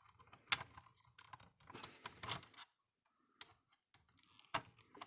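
Scattered light clicks and taps of small plastic and metal parts being handled while reassembling an electric fence energizer, coming in short irregular clusters with brief pauses between them.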